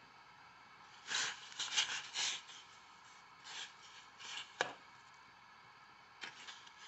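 Metal ladle scraping and pushing through noodles and mushroom pieces in a stainless steel saucepan, in a run of short scrapes, with one sharp clink of metal on the pan about two thirds of the way through.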